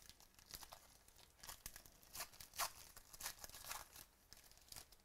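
Foil trading-card pack wrapper being torn open and crinkled by hand: a run of quick crackling rips, busiest in the middle.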